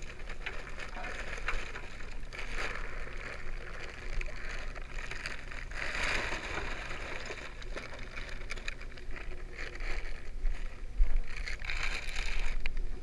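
Chunks of wood poured from a sack into a wood-gas gasifier's hopper, a continuous rattling and sliding with the sack rustling, over the low hum of the truck's engine idling on gasoline.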